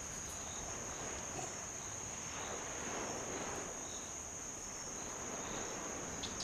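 Steady high-pitched insect drone over a faint outdoor hiss.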